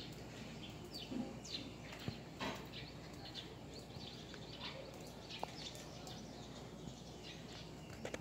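Small birds chirping: scattered short, high chirps that each sweep downward, over a faint steady outdoor background.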